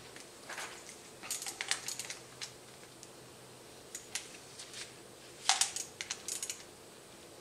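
Light clicks and taps of hands fitting a new cap onto a motorcycle clutch slave cylinder, coming in scattered clusters, the loudest about five and a half seconds in.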